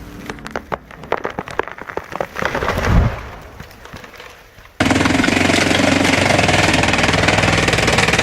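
Wood cracking and snapping, with a heavy thump about three seconds in. Then an abrupt cut to a loud wood-splitting machine running steadily with a fast rattling clatter.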